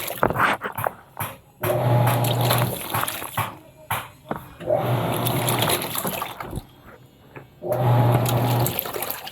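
Panasonic washing machine agitating a load on its blanket cycle: the motor hums and the water sloshes in spells of about a second, pausing and starting again about every three seconds.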